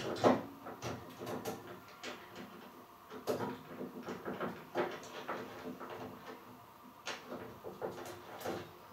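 Irregular light clicks and metallic rattles of a chainsaw chain and guide bar being handled as the chain is fitted around the bar and drive sprocket of a Baumr-AG SMX120 pole saw.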